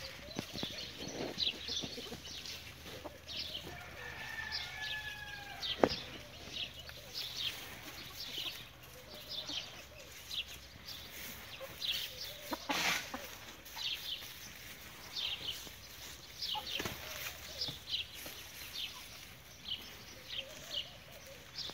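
Backyard chickens clucking and calling, over a steady run of short high chirps. A sharp click comes about six seconds in, and a brief rustling burst comes near the middle.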